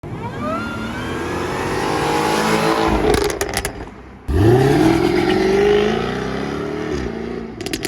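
Jaguar F-Type R's supercharged 5.0 V8 accelerating hard, its pitch rising. The exhaust crackles when the throttle lifts about three seconds in and again near the end. In between, the sound drops away briefly, then comes back loud and climbing again.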